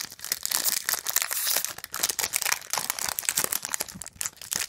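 Plastic wrapper of a trading card pack crinkling and crackling as it is handled and torn open by hand, dense and continuous.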